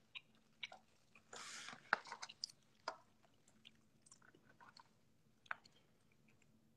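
A person chewing food close to a phone's microphone: faint, irregular wet mouth clicks and smacks, with a brief soft noise about one and a half seconds in.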